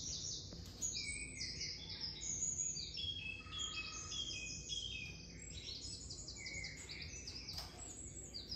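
Small birds chirping and twittering without pause, many short high calls overlapping one another.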